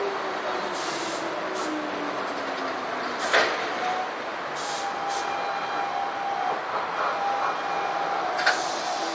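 Electric commuter train braking to a stop at a station platform, heard from the driver's cab. Its motor whine falls steadily in pitch as it slows, there is a sharp knock with a hiss about three seconds in as it halts, and then a steady hum and short bursts of air hiss follow from the stopped train's brakes.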